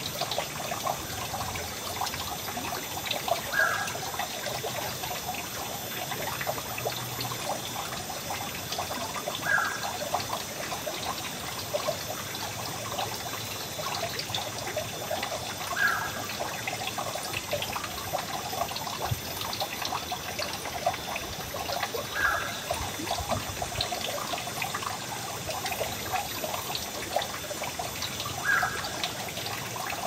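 Shallow stream flowing steadily over rocks, a continuous rushing and trickling of water. A brief gurgle stands out about every six seconds.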